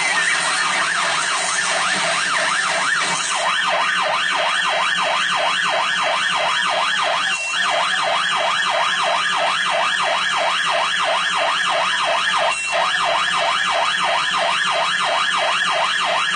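Police car siren in rapid yelp mode, sweeping quickly up and down in pitch about three times a second without a break.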